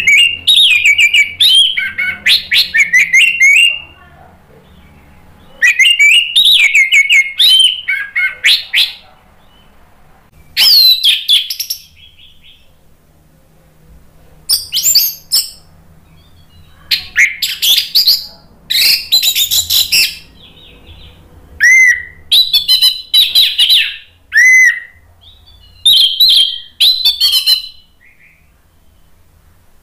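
Orange-headed thrush singing loudly in a series of varied, warbling song phrases, each one to four seconds long, with short pauses between them.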